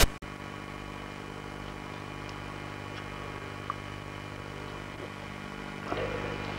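Steady electrical hum and hiss of an old camcorder's recording, with a sharp click at the start where the tape cuts, and a few faint ticks.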